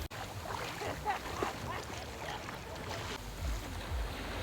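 Ocean water and wind noise, with uneven low rumbles from wind on the microphone and a few faint short chirps about a second in.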